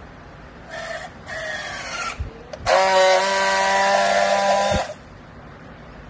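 A battery-powered handheld strapping tool tensioning a plastic strap around a bale: its motor runs in two short bursts, then gives a louder, steady whine for about two seconds as it friction-welds the strap seal, and stops sharply.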